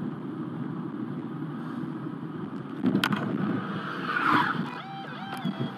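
Road and engine noise of a car driving on a wet road, heard from inside the cabin. There is a sharp knock about three seconds in, a short, louder squeal-like rise a second later, and a few brief tones near the end.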